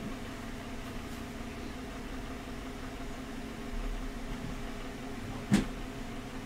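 Steady low hum of room noise, with one sharp click about five and a half seconds in.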